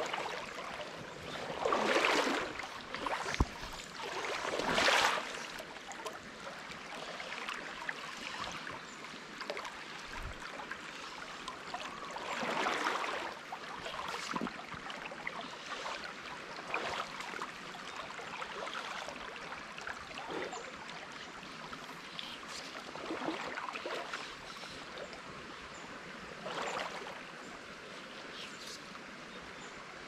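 Small creek running over rocks in a shallow riffle, a steady trickling flow. A few louder whooshes about a second long rise over it, the two strongest within the first five seconds.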